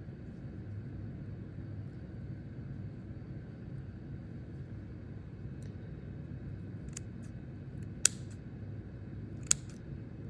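Steady low room hum, with a few sharp snips near the end, two of them clearly louder, as a blade cuts through plastic bird netting wrapped around a snake.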